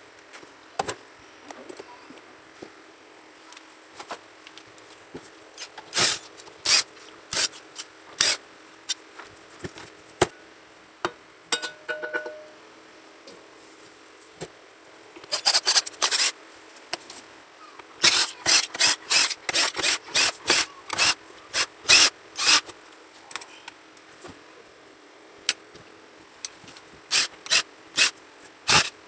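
Hands and a prying tool working on a Bluetooth speaker's plastic housing during disassembly: irregular clicks, taps and scrapes, bunched in clusters, over a faint steady hum.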